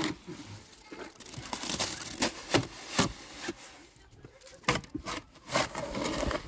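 A string of irregular knocks and clicks with scraping between them.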